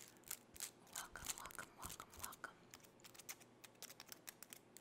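Very long pink pointed nails scratching and clicking through hair in a quick, irregular run of faint clicks and scratches.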